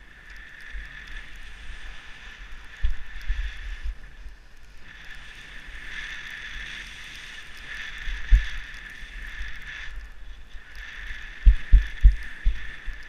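Skis hissing and scraping over packed, tracked snow on a downhill run, swelling and fading with the turns. A few low thumps hit the camera microphone, the loudest cluster near the end.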